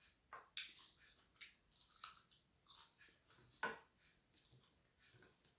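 Soft, close-up eating sounds: chewing and wet mouth smacks in an irregular string of short clicks, the sharpest about three and a half seconds in.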